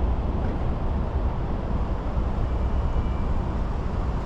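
Steady low rumble of road traffic, with a faint thin high whine about halfway through.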